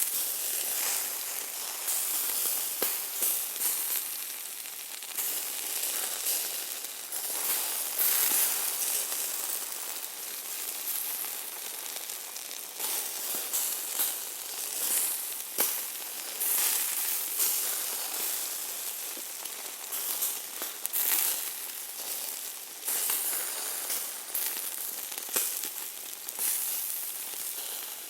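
Hamburger meat sizzling: a continuous, unevenly swelling hiss, crackling with frequent sharp pops of spitting fat.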